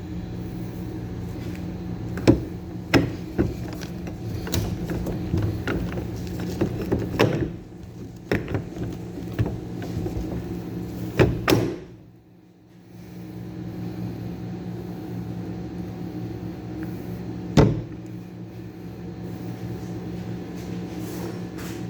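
A steady mechanical hum that cuts out briefly about twelve seconds in and then resumes, with scattered sharp knocks and clanks of tools and parts being handled at a truck repair.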